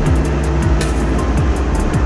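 Background electronic dance music with a heavy bass beat, bass notes sliding down in pitch, and quick clusters of high ticks.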